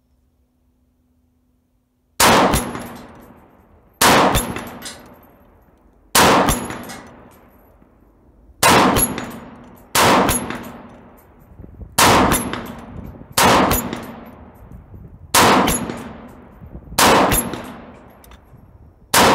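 A 7.62x39 AR-47 rifle with a 10.5-inch barrel firing about ten single shots, starting about two seconds in, spaced roughly one and a half to two and a half seconds apart, each followed by a decaying echo.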